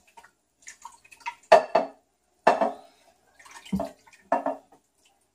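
Kitchenware knocking: four sharp clunks with a short ring, with softer clicks and clatter between them, as a bowl of curry sauce is emptied into a crock pot.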